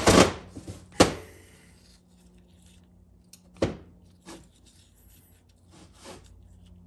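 Steel automatic-transmission parts (planetary carrier, washers, bearings) handled and set down on a metal workbench: a loud knock at the start, another about a second later, a third at about three and a half seconds, then fainter taps and rubbing.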